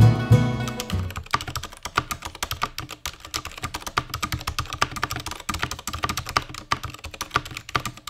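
Fast typing on a Durgod K320 tenkeyless mechanical keyboard with Cherry MX Silent Red switches and HK Gaming double-shot PBT pudding keycaps: a dense run of crisp, solid keystrokes. Background music fades out about a second in, as the typing takes over.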